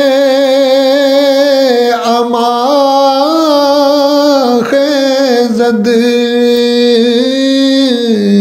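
A man's unaccompanied voice singing a Persian devotional plea (istighasa) in a naat-style chant. He draws the line out in long, slowly gliding notes with a wavering vibrato.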